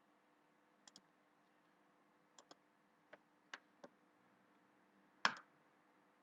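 Computer mouse clicking, a few single clicks and a couple of quick double-clicks, the loudest about five seconds in, over faint room tone.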